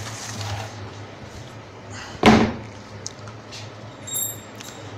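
Rustling of cardboard and fabric as a folded suit is lifted out of its box, then a single loud knock about two seconds in as the empty cardboard box is set down on the table. A low steady hum runs underneath.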